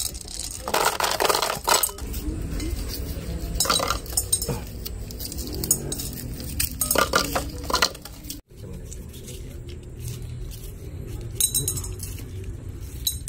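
Mentos candies dropped through a cut-off bottle-top funnel, clattering into a plastic bottle in several spells of rapid clinks, with knocks of plastic bottles being handled.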